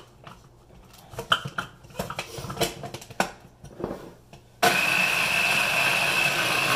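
Plastic bowl and lid of a Hamilton Beach mini food chopper clicking and clattering as they are fitted, then about four and a half seconds in its motor starts and runs steadily with a high whine, grinding dill weed.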